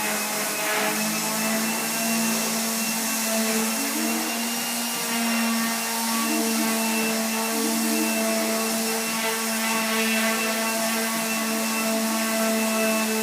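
Electric power sander running steadily on wood: a constant motor whine over a hiss.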